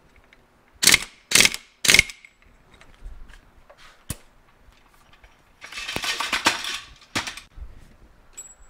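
Impact wrench fired in short bursts, three in quick succession in the first two seconds, tightening a nut on a Yamaha AT-1 two-stroke engine's crank/clutch assembly. A single sharp click follows, then a longer noisy rush lasting about a second near the six-second mark.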